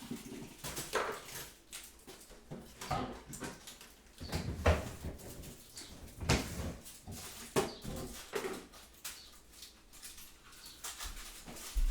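A dog whining in short, irregular calls, with occasional light clinks and knocks of crockery and utensils being handled.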